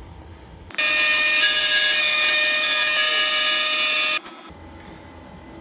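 Genmitsu hobby CNC router cutting out a wooden part: a steady high spindle whine with the hiss of the bit cutting. It starts abruptly about a second in and cuts off after about three and a half seconds.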